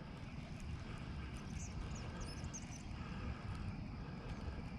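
Quiet outdoor background: a steady low rumble, with a few faint high chirps about two seconds in.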